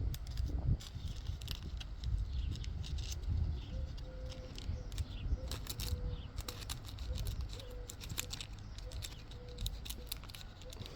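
Trading cards being handled: an irregular run of light clicks and rustles over a low steady rumble.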